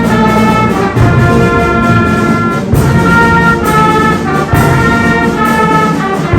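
Instrumental music led by brass, with trumpets and trombones playing held chords that change every second or so.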